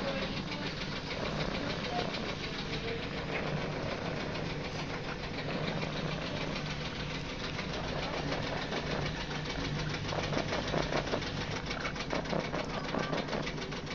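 Washing machine running mid-wash: a steady motor hum with a fast, even rattle.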